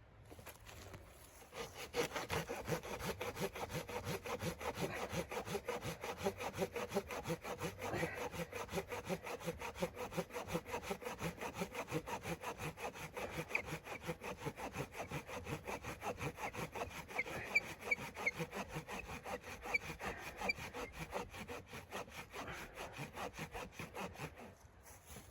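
A hand saw cutting through wood with quick, even back-and-forth strokes. It starts about two seconds in and stops near the end.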